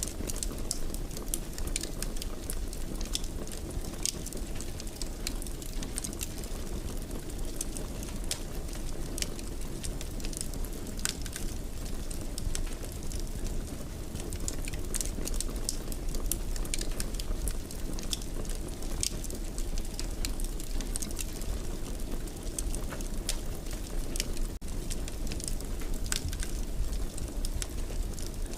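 Wood fire crackling in a fireplace: a steady low rumble with frequent, irregular sharp pops and crackles.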